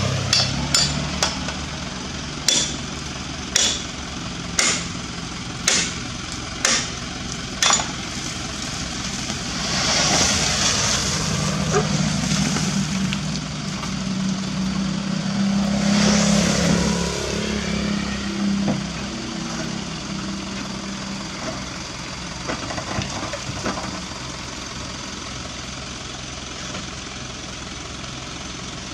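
A steel bar striking the dump truck's tailgate latch about eight times, roughly once a second, to knock it loose, with the truck's diesel engine idling underneath. Then come longer rushing, scraping noises as the tailgate doors are worked open.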